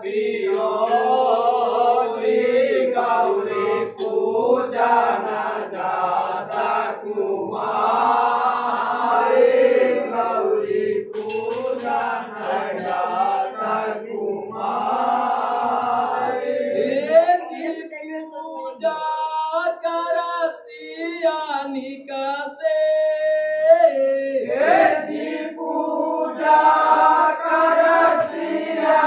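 A group of men singing a traditional Holi folk song together, with a single voice carrying the melody alone for several seconds past the middle before the group joins in again.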